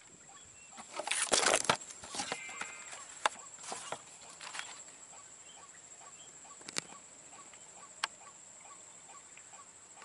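Rustling and knocking of gear being handled among palm fronds about a second in, with a few sharp clicks after. Then a faint clucking call repeats evenly, about two to three times a second, typical of a white-breasted waterhen.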